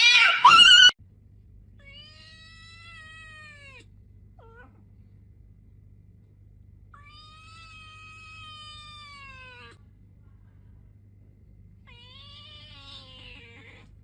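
A loud voice cuts off about a second in. Then a cat gives three long, drawn-out meows, each about two to three seconds long and dropping in pitch at the end, with a short squeak between the first two. A steady low hum runs underneath.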